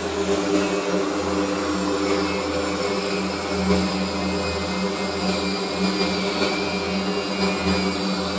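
A machine running with a steady low hum and a hiss over it.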